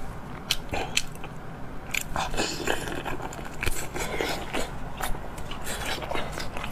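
Close-miked eating sounds: a person biting and chewing food, with sharp crunches and wetter squelching chews.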